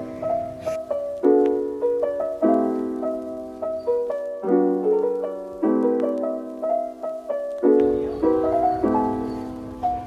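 Background music: soft piano chords, each struck and left to fade, about one a second in a slow, even rhythm.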